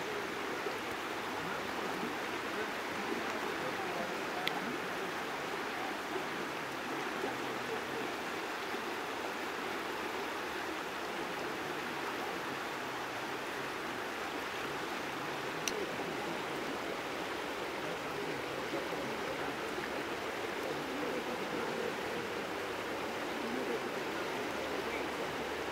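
Shallow river current flowing steadily over a rippled riffle, an even rush of water, with a faint tick twice.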